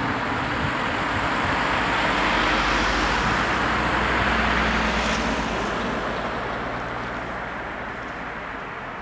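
Cars driving past on the road, their tyre and engine noise swelling to its loudest about halfway through as one passes close, then fading away.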